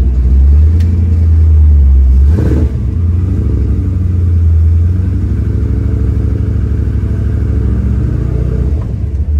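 The 383 V8 of a 1955 Chevy Bel Air, heard from inside the cabin, pulling the car along the road. The engine note has a short break about two and a half seconds in, then runs on steadily under load.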